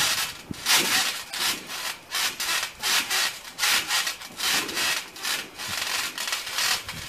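Bare feet shuffling and sliding through a layer of wet Orbeez water beads on a trampoline mat: a run of rasping swishes, about two a second.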